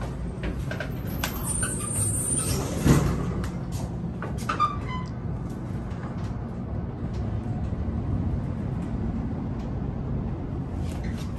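Outdoor glass elevator car running up its shaft: a steady low hum and rumble of the ride, with a few light clicks and a sharp knock about three seconds in.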